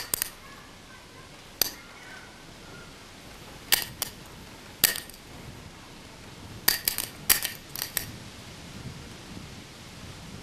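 Sharp, short clicks and clinks, about fifteen in all, in scattered groups: a pair at the start, single ones near two, four and five seconds, and a quick run of about eight between seven and eight seconds.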